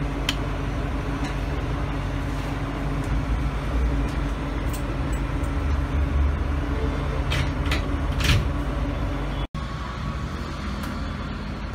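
Steady low hum of a rolled-ice-cream machine's cold plate refrigeration running, over background noise, with a few short clinks around the middle. The sound drops out for an instant about two-thirds of the way through.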